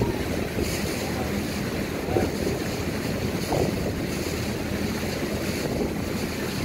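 Wind buffeting the microphone over the rush of water past a moving boat, with a low steady hum underneath.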